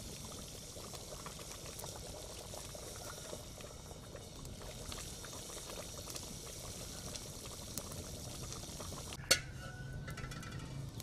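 A large pot of pumpkin soup boiling over a wood fire: a steady bubbling dotted with small pops. About nine seconds in there is a single sharp clack, the loudest sound.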